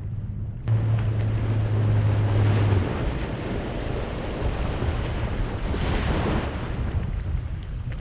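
Boat's outboard motor running, with wind buffeting the microphone and waves washing. A steady low motor hum starts suddenly about a second in and drops away about two seconds later, leaving wind and water.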